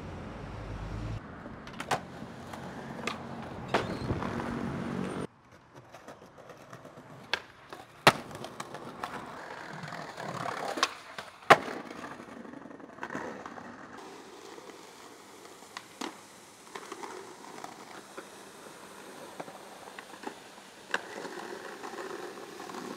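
Skateboards rolling over paving and tiles, with a series of sharp wooden clacks as boards are popped and land, the loudest about eight and eleven and a half seconds in.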